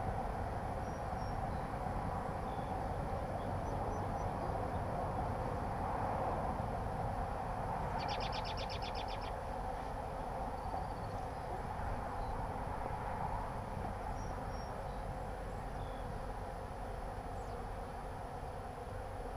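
Honey bees buzzing around an open hive: a steady, dense drone over a low rumble. A brief high trill cuts in about eight seconds in.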